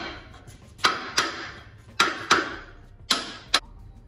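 Hammer striking the steel front suspension parts of a Chevy truck frame: six sharp, ringing metal blows in pairs, about one pair a second.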